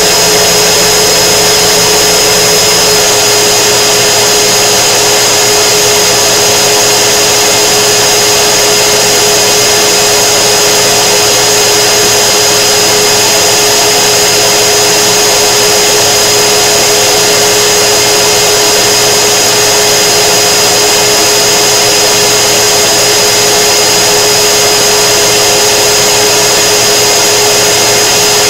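K-40 laser cutter's fan and air assist running steadily, a loud blowing noise with a steady whine. A low hum underneath drops out about three seconds in.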